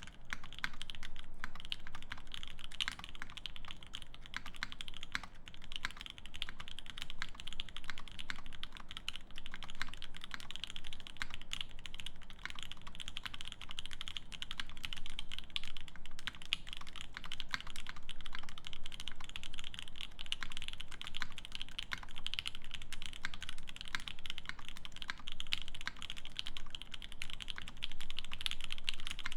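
Steady, fast typing on a Keycult No.1/65 mechanical keyboard with Pinoko V2 switches lubed with Krytox 205g0, an aluminium plate and GMK keycaps: a dense, unbroken stream of keystrokes.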